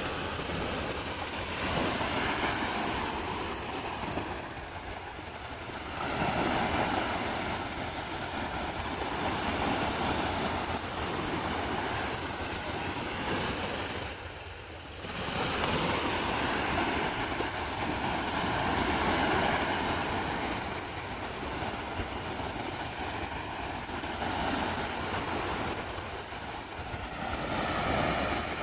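Waves washing on a sandy beach, with wind on the microphone: a steady rushing noise that swells and eases every few seconds, dipping briefly about halfway through.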